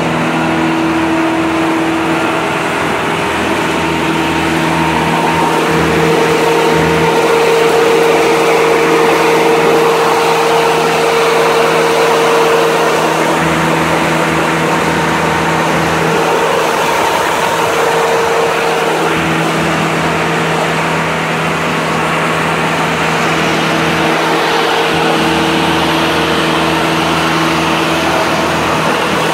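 Diesel engine of a 2007 Morbark Tornado 15 wood chipper running steadily.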